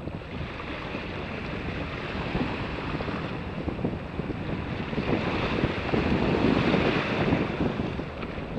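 Wind buffeting the microphone over the wash of small waves in shallow sea water, swelling louder from about five seconds in before easing near the end.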